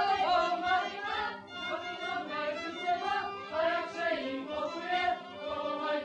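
Czech Silesian folk song sung by young men and women together in unison, over a sustained fiddle accompaniment.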